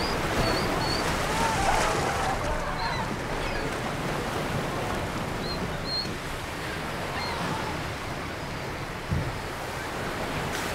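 Sea water washing against a rocky shore: a steady rush of surf that eases a little after the first couple of seconds, with a few faint, short high chirps now and then.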